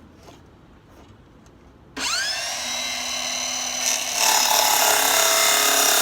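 Cordless circular saw starting about two seconds in, its whine rising quickly as the blade spins up, then getting louder about four seconds in as it cuts into a piece of wood.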